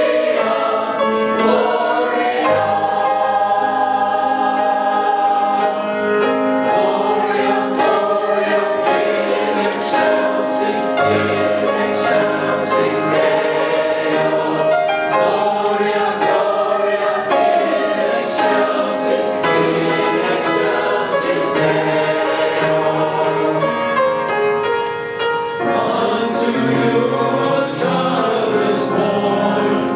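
Church choir singing in parts, with sustained chords changing every few seconds.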